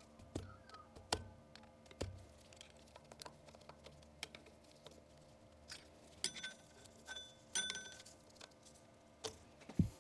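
Scattered clicks and clinks of a hand tool and small steel parts as the sector arms are taken off a lathe's indexing plate. Several clinks ring briefly with a bright metallic tone a little past halfway, and a dull thump comes near the end.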